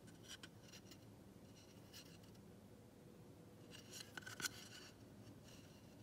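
Near silence with faint handling noises: a few light clicks and rubs of fingers shifting on a table tennis blade's wooden handle, the loudest a short cluster about four seconds in.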